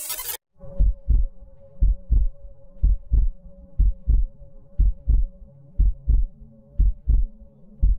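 Heartbeat sound effect: paired low thumps, lub-dub, about one beat a second, over a faint steady hum with a tone in it. It opens with a brief burst of hiss that cuts off sharply.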